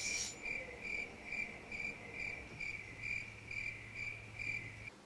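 A cricket chirping at an even pace, a little over two chirps a second, stopping abruptly near the end.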